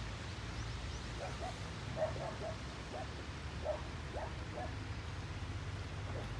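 Small dog, a toy poodle, whining in a run of short high whimpers and yips over a steady low hum.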